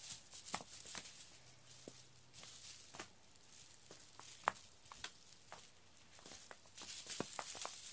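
Cat teaser toy being waved and batted, giving a quiet crinkly rustle with scattered light ticks and taps.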